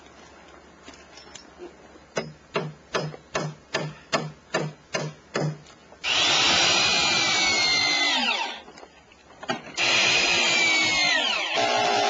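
Electric power tool running in two short bursts, its whine falling in pitch as it winds down each time, after a run of about ten even strokes at a little over two a second.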